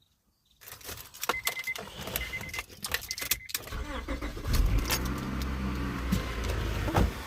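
Keys jangling and clicking with three short beeps, then the 1996 Honda Accord's engine starts about four seconds in and idles. It runs a little shaky with a misfire on cylinder 3, whose spark plug is soaked in oil from a failed gasket.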